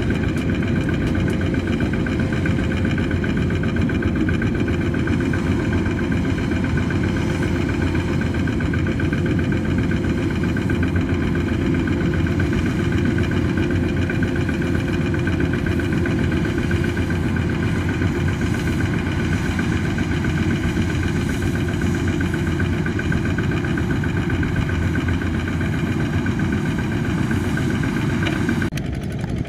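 Two-wheel walking tractor's single-cylinder diesel engine idling steadily while standing with its loaded trailer. The sound drops and dulls about a second before the end.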